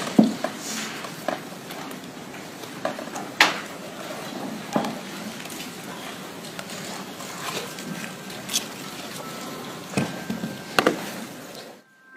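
Steady background hiss of a large room, broken by scattered sharp clicks and knocks, a second or more apart, as objects are handled at a desk. It cuts off suddenly near the end.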